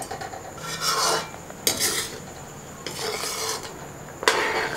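Slotted metal spoon stirring milk-and-sugar syrup with fried dry fruits in a metal kadhai, scraping against the pan in four rasping strokes about a second apart.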